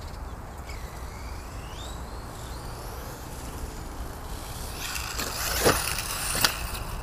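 ZD Racing DBX-10 radio-controlled buggy being driven on a lawn, its rear differential freshly repaired and filled with 30k diff oil: a faint motor whine rises and falls in pitch, then about five seconds in it gets louder and noisier as the buggy runs close by, with two sharp knocks near the end.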